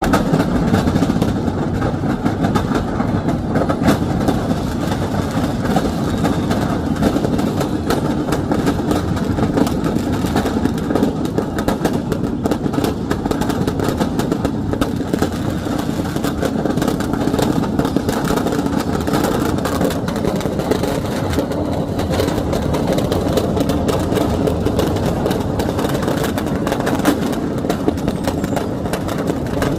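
Firecrackers going off in a fire: a loud, dense, unbroken crackle of many small bangs.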